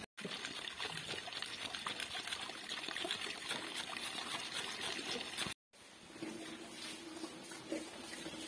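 Water running from a wall tap and splashing into a plastic basin, a steady trickling splash. It cuts off about five and a half seconds in, giving way to a quieter stretch with a low steady hum.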